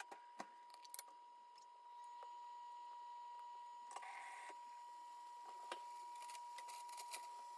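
Faint cooking sounds from pancake batter on low heat in a nonstick pan: scattered soft ticks and small pops over a steady high-pitched electronic whine, with a brief hiss about four seconds in.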